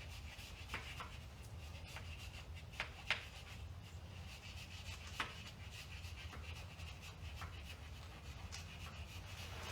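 Faint scrubbing and rubbing on a car's brake rotor to clear off brake dust, with a few sharp clicks and taps over a low steady hum.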